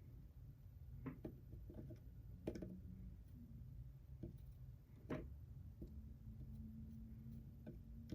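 Near silence: faint room tone broken by a few light clicks and taps, the sharpest about a second, two and a half and five seconds in, from handling soldering tools and the connector.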